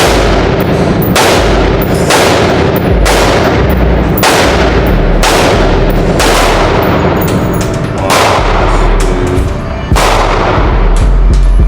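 Background music with heavy bass and a sharp, reverberant hit about once a second.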